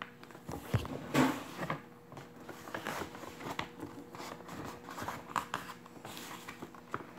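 A large sheet of origami paper rustling and crinkling as hands bend it in half and press the fold flat, with scattered short swishes and light taps, the loudest about a second in.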